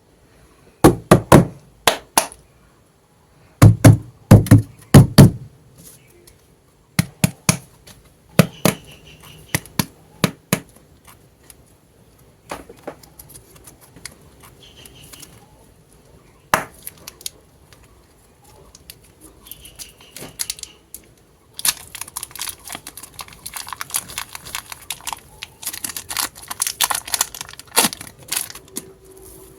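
Clay packaging being unboxed and handled: groups of sharp plastic clicks and knocks at first, scattered lighter ticks, then steady crinkling and crackling in the last third.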